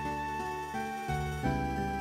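Background music: a slow instrumental tune with a held, flute-like melody over sustained chords, the notes changing every half second or so.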